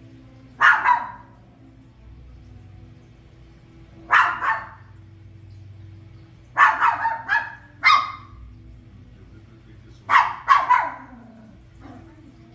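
Toy poodle barking in short groups of two to five barks, a few seconds apart.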